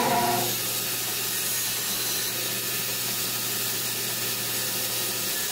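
Workshop power tool running steadily: an even hiss with a low hum underneath that stops near the end.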